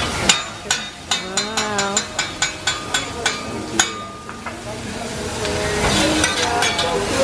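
Teppanyaki chef's metal spatulas clacking rhythmically on the steel griddle, a quick run of sharp metallic taps at about four a second for the first few seconds. A hissing noise then rises toward the end.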